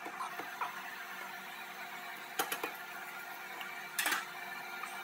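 Metal rear brake hardware being handled at the caliper bracket: a few light clicks in the first second, two more about halfway, and a louder clatter about four seconds in. A steady faint hum runs underneath.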